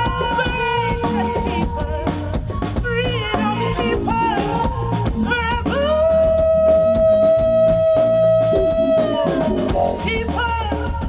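Live funk-rock band playing: drum kit, bass and guitar under a sung melody, with one long held note from about six to nine and a half seconds.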